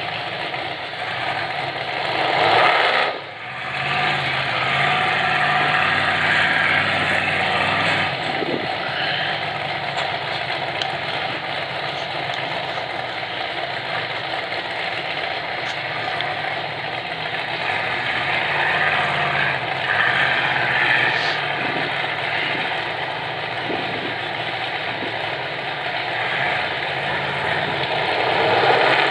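Engines of off-road rock buggies running, mostly idling with a steady rumble. About three seconds in the sound swells and then drops off abruptly.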